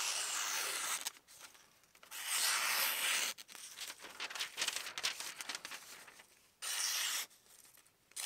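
Freshly sharpened folding knife slicing through thin paper in about four long, hissing strokes with short pauses between. These are paper-cutting passes testing the edge's sharpness.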